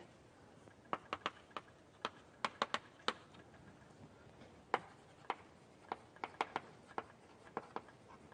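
Writing on a board during a lecture: irregular sharp taps and clicks, a few a second, as words are written out.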